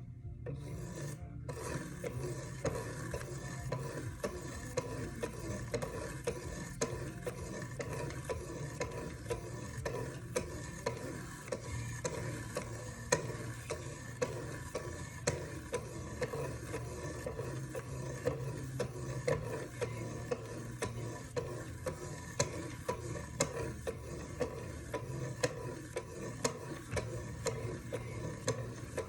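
Wicked Edge guided sharpener's 1200/1600-grit ceramic stones stroked repeatedly along a knife blade's edge, a steady run of rasping strokes with short clicks between them.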